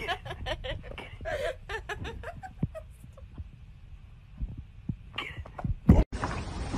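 A dog sniffing and snorting with its nose pressed against a person's bare belly: quick breathy sniffs in rapid runs, then a quieter stretch with a few low thuds and another short run of sniffs. Near the end the sound cuts off abruptly.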